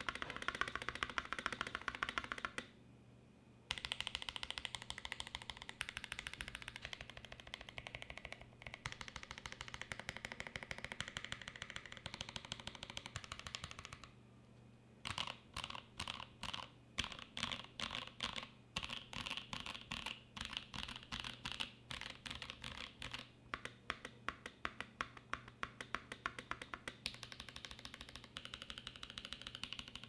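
Typing on a Primus75 mechanical keyboard with lubed Holy Boba Franken tactile switches in an aluminum plate and GMK doubleshot ABS keycaps: quick runs of keystrokes with a slight resonance, which the typist puts down to the U4T switch housings not sitting snugly in the plate. Typing stops briefly twice, about three seconds in and near the middle, and afterwards the strokes come more spaced out.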